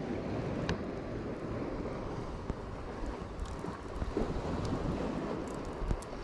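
Wind buffeting the microphone over the steady wash of sea surf, with a few faint small clicks.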